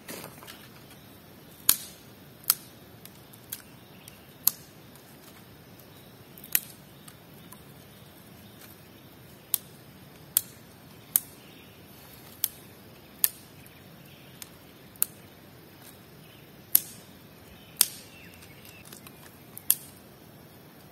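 Dry twigs or sticks being snapped: about fifteen sharp, separate cracks at irregular intervals, over a faint steady outdoor background.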